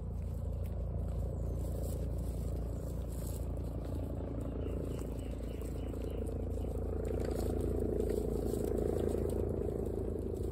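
Guinea pigs chewing dry pellets: a quick, continuous run of small crisp crunches over a steady low hum.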